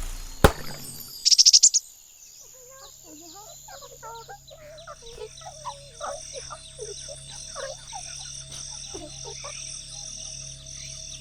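Cartoon forest ambience: many short bird chirps and warbles, after a quick rattle of rapid clicks about a second in.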